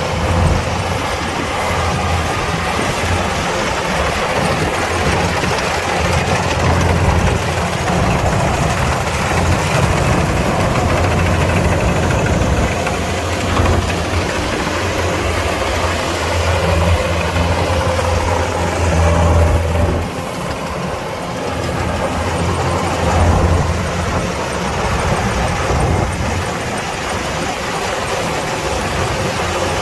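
Kubota DC-105X combine harvester's diesel engine running steadily, with a brief dip in level about twenty seconds in.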